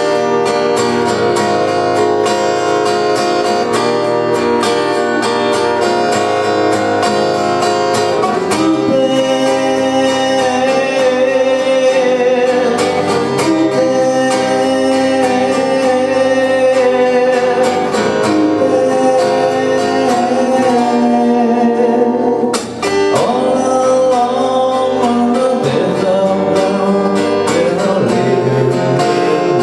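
Music led by acoustic guitar, with a singing voice carrying a held melody line through the middle of the passage and a brief drop in sound about two-thirds of the way through.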